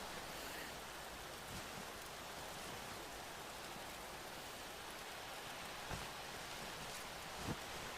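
Steady rain ambience, an even hiss, with a few soft low knocks about six and seven and a half seconds in.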